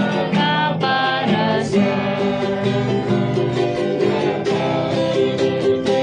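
Music: a song with plucked acoustic guitar and a singing voice.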